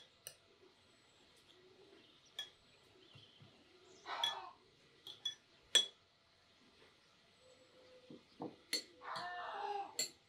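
Glassware and cutlery clinking: a scatter of sharp clinks that ring briefly, the loudest about six seconds in, with two short duller noises about four and nine seconds in.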